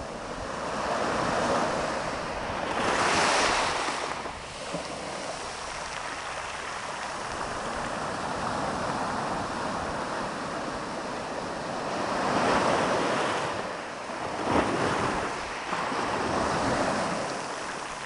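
Sea waves surging in and washing back on the shore, swelling and fading several times, with wind buffeting the microphone.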